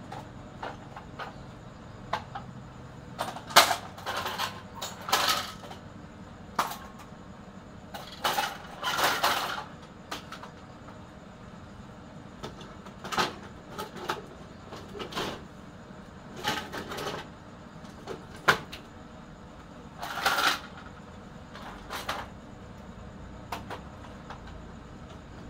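Scrap computer motherboards clattering and knocking against each other as they are pulled out of a woven plastic sack and handled, with the sack rustling. Irregular knocks, scrapes and a few sharp clacks, the sharpest about three and a half seconds in.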